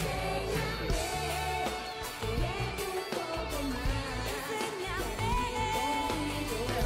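Pop song with singing over a steady beat and heavy bass.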